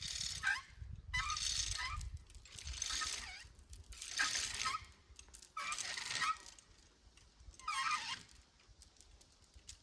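Hand chain hoist being pulled hand over hand to lift a log: a burst of chain clatter with a squeak about every second and a half.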